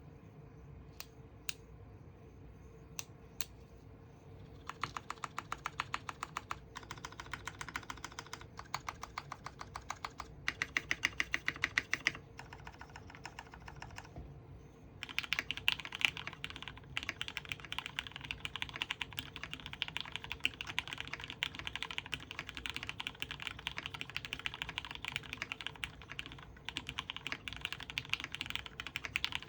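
Typing on an Orion v2.5 custom mechanical keyboard with lubed Cherry Retooled Black linear switches, PBT keycaps and an aluminium plate. A few single key presses come first, then bursts of fast typing with short breaks, and steady fast typing from about halfway through.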